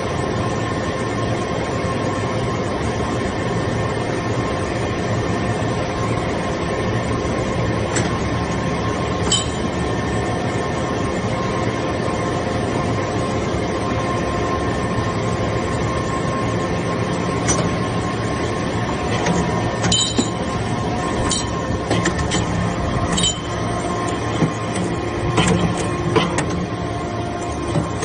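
Hydraulic power unit of a vertical metal-chip briquetting press running steadily, a constant machine hum with several steady tones. Sharp metallic clinks and knocks come now and then, more often in the second half.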